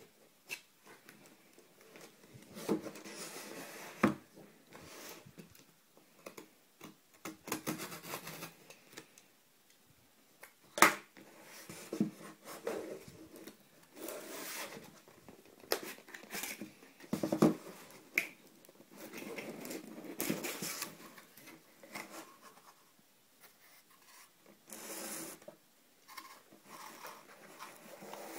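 A cardboard shipping box being cut open with a utility knife and unpacked: scraping and rustling of cardboard and packing tape, broken by scattered sharp knocks and taps, the loudest about eleven seconds in.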